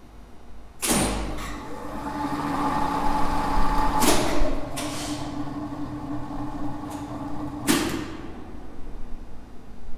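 Two-speed lift with a squirrel-cage motor driving a Zremb winch, run with its braking resistors connected. Contactors clack as the motor starts about a second in, and the machine hums steadily. A clack about four seconds in switches it to slow speed, and the hum drops its higher whine. Another clack follows about half a second later as the braking contactor cuts the braking resistors out. A final clack near eight seconds stops the motor and the hum.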